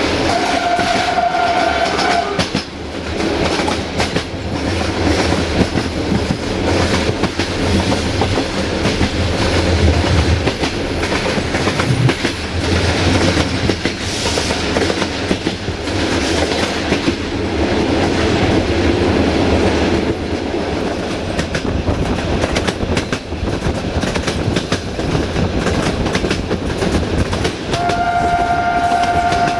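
Passenger coach running on jointed track, heard through an open window: steady rumble and hiss of the bogies with rail-joint clicks throughout. A train horn sounds twice, for about two seconds near the start and again near the end.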